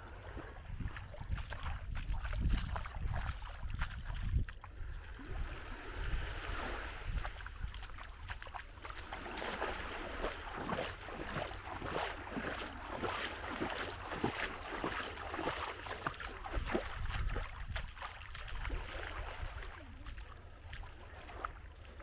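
Wind buffeting the microphone with a low rumble over the wash of small waves on the shore, with a denser crackling stretch through the middle.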